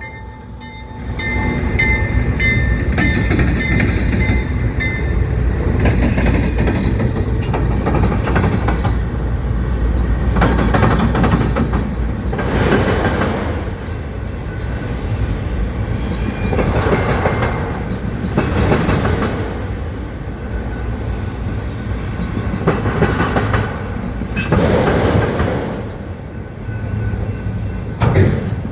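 Autorack freight train rolling past: a steady low rumble with the wheels clattering over rail joints in recurring bursts every couple of seconds.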